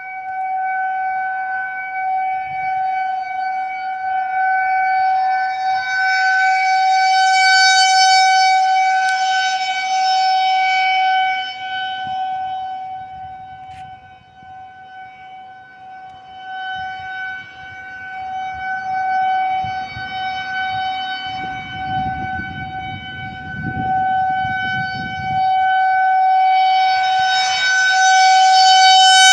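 Outdoor civil-defense warning siren sounding a steady single-pitch tone during a test. The tone swells and fades slowly, loudest about eight seconds in and again near the end, faintest around the middle.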